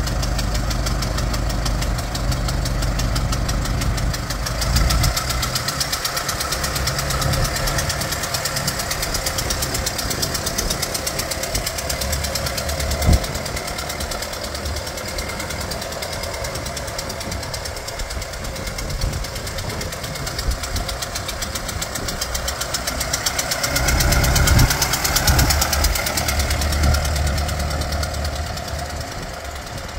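1924 Ford Model T coupe's four-cylinder flathead engine running with a fast, even putter as the car drives at low speed, with a single sharp click about halfway through. The engine fades near the end as the car pulls away.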